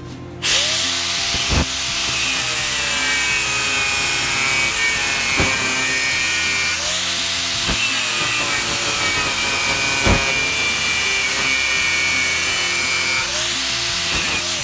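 A power tool working a workpiece: a steady, harsh hiss with faint high ringing tones that starts about half a second in, broken by a few short knocks.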